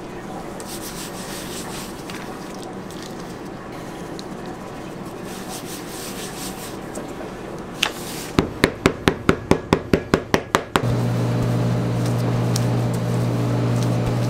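Powder shaken from a container over dough with a soft rustle, then a quick run of about a dozen even taps, about five a second. A steady machine hum then starts suddenly and stays loud.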